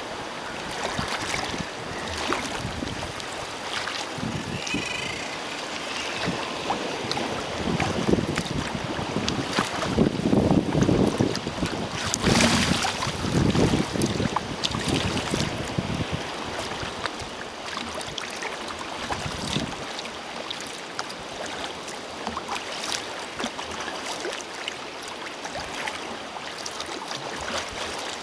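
Choppy sea water sloshing and splashing around a sea kayak, with wind buffeting the microphone. The gusts and splashes are loudest around the middle.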